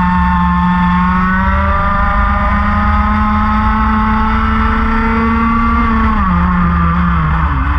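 Racing kart engine at full throttle, heard close up. Its pitch climbs steadily along the straight, then falls sharply about six seconds in as the revs drop, and dips again near the end.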